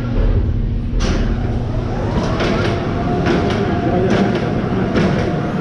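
Roller coaster train rolling out of the station: wheels rumbling and clacking on the track, with repeated clicks and a whine that rises and then holds steady.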